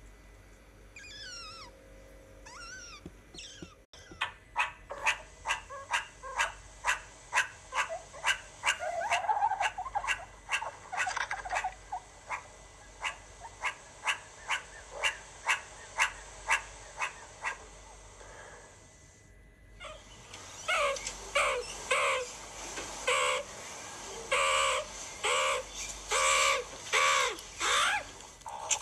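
Meerkats calling: a long run of sharp, short chirps, about two a second, then after a brief break a series of louder, pitched calls about once a second. A few faint gliding chirps come before them in the first seconds.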